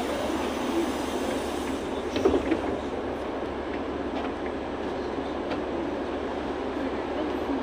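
Steady engine and cabin noise inside a LiAZ 6213.65 articulated city bus standing at a stop, with a short cluster of knocks a little over two seconds in.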